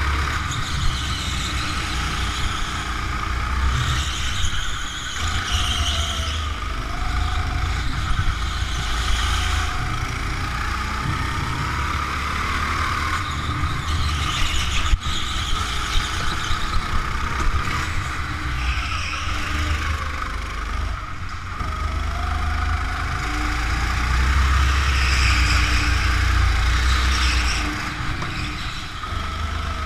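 Go-kart engine running at speed, its pitch rising and falling as the kart goes through the corners, over a heavy low rumble of vibration on the on-kart microphone.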